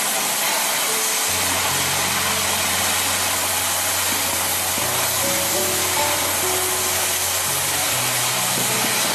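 Background music with slow held bass notes over a steady hiss from a CNC cutting torch cutting through metal plate.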